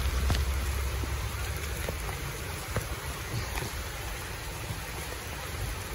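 Heavy rain falling on a flooded road: a steady hiss with scattered drop ticks. A low rumble fades away over the first couple of seconds.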